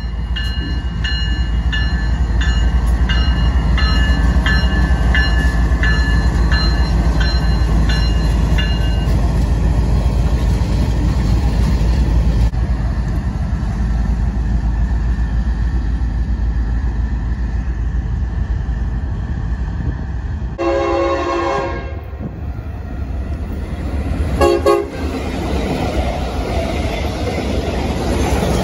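BNSF diesel freight locomotives rumbling past, with a bell ringing about twice a second for the first nine seconds. About twenty seconds in, a locomotive horn sounds for just over a second, followed a few seconds later by a short toot.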